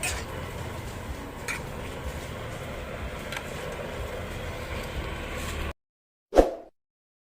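Steady low rumbling noise from the chopsuey cooking on the stove, with a few faint clinks. It cuts off abruptly near the end, and one short, loud edited sound effect follows.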